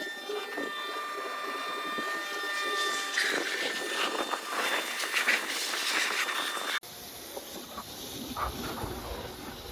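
Karcher K2 electric pressure washer running: a steady motor whine under the hiss of water spraying, growing louder and more uneven in the middle. About seven seconds in the sound cuts abruptly to a lower, rumbling noise.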